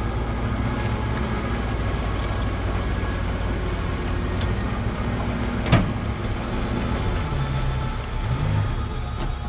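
Boat outboard motor idling steadily at low speed, with a single sharp knock about six seconds in and a slight change in engine pitch near the end.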